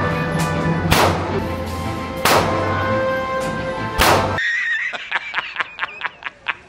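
Three 12-gauge bullpup shotgun shots, about a second and a half apart, over background music. The sound then cuts off suddenly, and a man's rapid, repeated cackling laugh follows.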